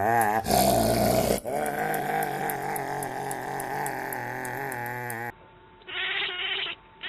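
A pet's long warbling call, its pitch wobbling up and down, with a brief noisy burst about half a second in. After a sudden cut about five seconds in, a different animal gives one short cry.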